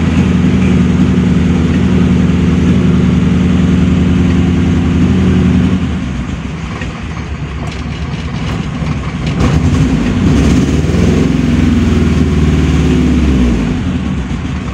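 An old car's petrol engine running cold while it warms up. Its sound swells and eases: louder for about the first six seconds, quieter for a few seconds, louder again, then lower near the end.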